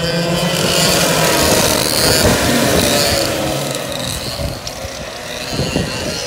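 A pack of two-stroke racing karts accelerating past together, several engines revving at once and rising in pitch. Loudest about one to two seconds in, then fading as the karts pull away.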